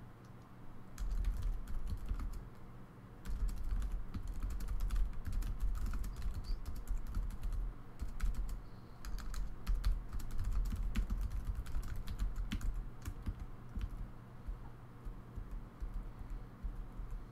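Typing on a computer keyboard: irregular runs of key clicks with low thumps, starting about a second in, over a faint steady low hum.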